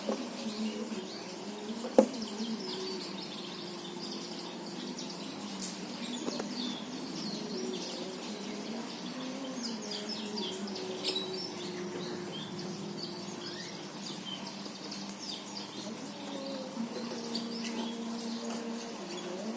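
Bird chirping: many quick, high chirps scattered throughout, over a low steady hum, with a single sharp click about two seconds in.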